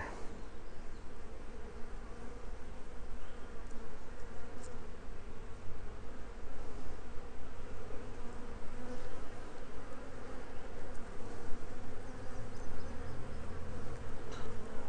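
Honey bees buzzing in a steady drone, a mass of them crowding a comb frame lifted out of an open hive.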